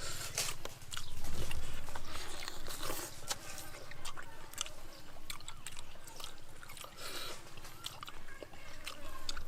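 A person eating, biting and chewing food with irregular crunching clicks, loudest a second or two in.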